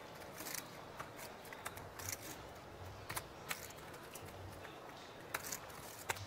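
Sharp, irregular clicks of poker chips being handled and fiddled with at the table, over a low hiss of room tone.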